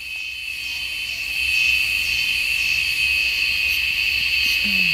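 Insects droning in the surrounding trees: a steady, unbroken high-pitched buzz that swells over the first second or so and then holds.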